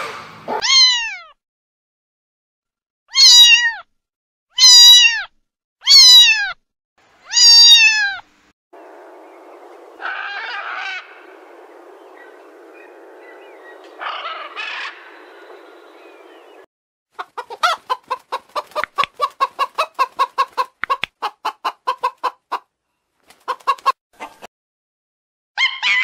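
Ring-tailed lemur giving four loud, cat-like meow calls, each falling in pitch, about a second and a half apart. Then comes a steady noisy background with two squawks from blue-and-yellow macaws. Last is a long, rapid run of short calls, four or five a second, with a short pause near the end.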